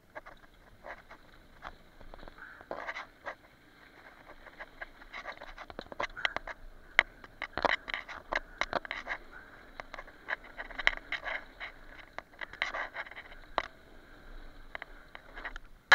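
Mountain bike riding down a wooden boardwalk and then a dirt trail: a rapid, irregular stream of clicks, knocks and scrapes from the tyres over the ground and the bike rattling, busier and louder after the first few seconds.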